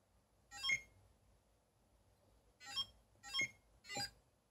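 Commodore CHESSmate chess computer giving four short beeps, one for each key pressed as a move is entered: one about half a second in, then three more about half a second apart near the end. Each beep acknowledges a keypress, showing the repaired keypad and beeper working.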